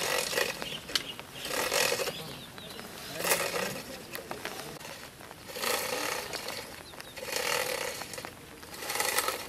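Hoes digging and scraping wet soil around the base of a concrete pole, about six separate strokes a second and a half to two seconds apart.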